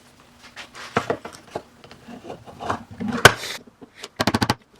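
A tool scraping and prying at a plastic camera body, with irregular scrapes and clicks, one sharp crack a little over three seconds in, and a quick run of clicks near the end.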